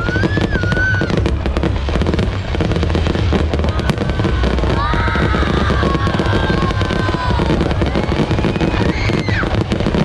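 Fireworks display: a continuous dense crackle of bursts, with several whistling tones that glide up and down in pitch, the longest cluster near the middle.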